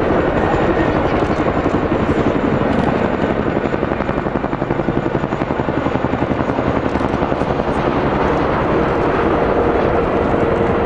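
CH-47 Chinook tandem-rotor helicopter flying low and slowly, its rotor blades beating in a fast, steady chop.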